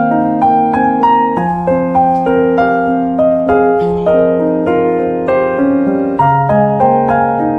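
Background piano music: a gentle melody of notes struck about twice a second over held bass notes.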